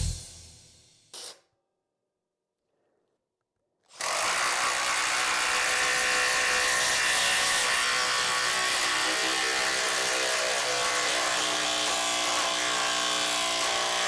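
Makita XDT14 brushless cordless impact driver running steadily under load, driving a large screw. It starts about four seconds in, after a short silence, and keeps going at an even level for about eleven seconds.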